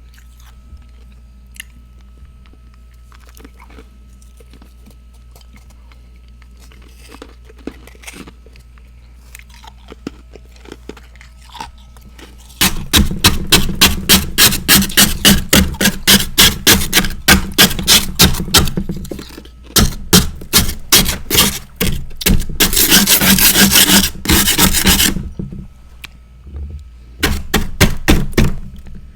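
Close-miked chewing of crunchy freezer frost: after a quiet stretch with only faint small clicks, a long run of loud, rapid crunches, several a second, starts about halfway through, with two short pauses before it resumes near the end.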